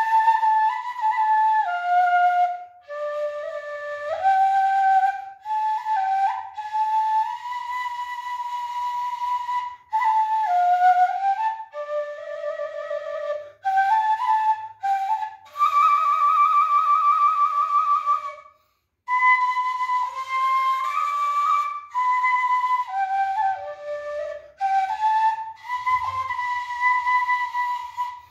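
Vietnamese bamboo transverse flute (sáo trúc) played solo, a slow melody in phrases with short breath pauses between them. A little past the middle comes one long note held with a wide vibrato.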